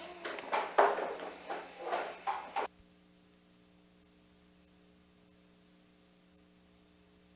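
A few irregular knocks and rustles for about two and a half seconds, then the home-video recording cuts off abruptly, leaving only a faint steady electrical hum.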